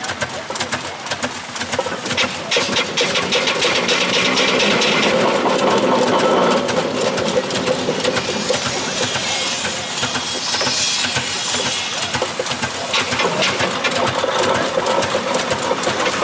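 Steam roller's engine running as it drives slowly, a rapid, steady mechanical clatter from its motion, with two spells of hissing.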